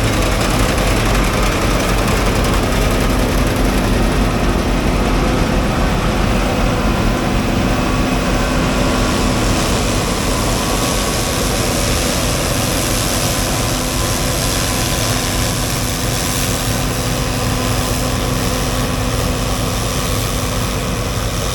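Diesel engine of heavy harvest machinery running steadily under load while cutting wheat: a constant hum with a steady tone over a rumble and machine noise, with no change in speed.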